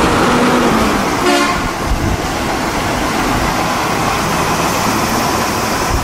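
Heavy trucks driving past close by, a steady wash of engine and tyre noise. About a second and a quarter in comes a brief pitched note.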